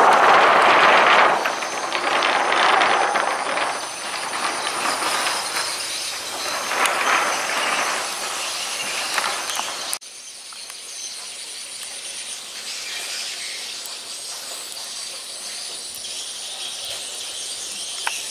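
Loud, even rushing noise, like a passing vehicle, which cuts off suddenly about halfway through. It leaves a quieter outdoor background of insects trilling steadily at a high pitch.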